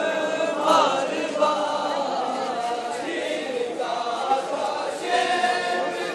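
A crowd of men chanting a mourning lament together in unison, many voices singing the same line.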